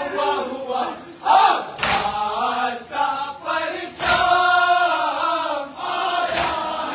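A large crowd of men chanting a nauha (Shia lament) in unison, loud and massed. Three sharp slaps of collective chest-beating (matam) land together, a little over two seconds apart.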